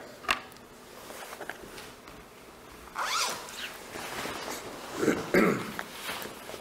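Soft rustling handling noises, with a light click just after the start and two louder swishes about three and five seconds in.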